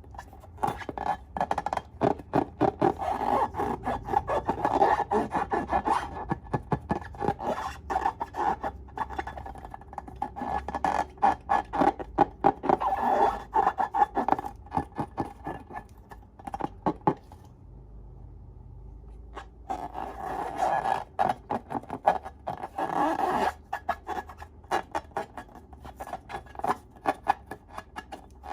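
Slime being squished and worked by hand, with dense runs of rapid sticky clicks and crackles and a short pause a little past the middle.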